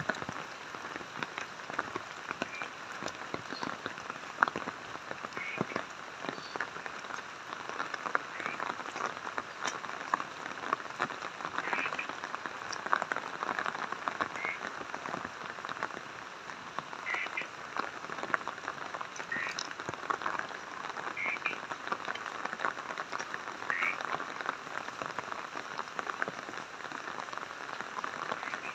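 Frogs croaking in short calls every couple of seconds over a steady patter of falling rain.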